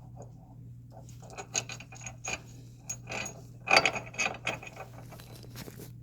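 Irregular metallic clicks and clatter of bolts and spacers being handled while fitting a front traction bar, with a cluster of louder clinks a little past the middle. A steady low hum runs underneath.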